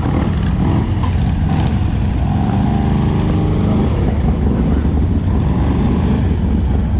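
Motorcycle engines running loud at a drag strip starting line, with one engine revving hard and held for about a second and a half near the middle.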